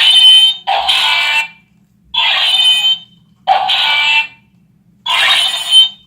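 Electronic sound effects from a light-up plastic toy sword's small speaker: five short bursts about a second apart, each a shrill, buzzy electronic tone.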